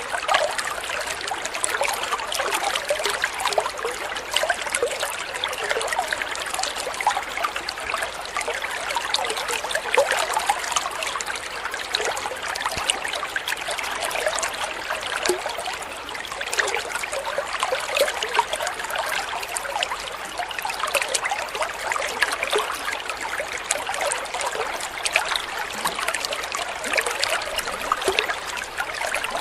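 Water trickling and babbling steadily, with a dense, even patter of small splashes.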